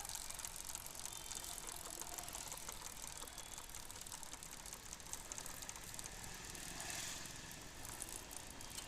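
Hero Passion motorcycle's drive chain running over its sprockets with a faint, fast clicking rattle. This is the crackling (कड़कड़ाहट) that the chain makes after being tightened, which the mechanic expects oiling to cure. A short hiss comes about seven seconds in.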